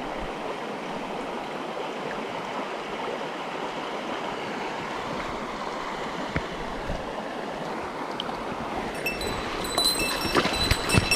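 Mountain stream water rushing steadily over rocks, with a few knocks and faint high steady tones near the end.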